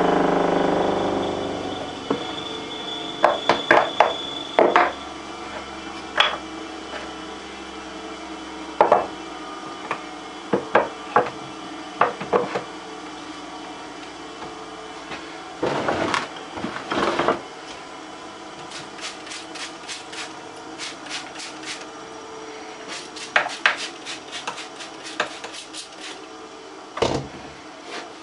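Scattered knocks and clicks of a steel blade and waterstones being handled and set down in a wooden stone holder on a workbench, with runs of quick light clicks in the second half. A steady machine hum fades out in the first two seconds.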